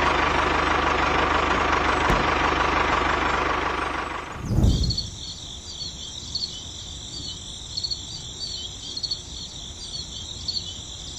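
Engine running steadily, stopping after a low thump about four and a half seconds in. After that comes a quieter, steady high-pitched chirping of crickets.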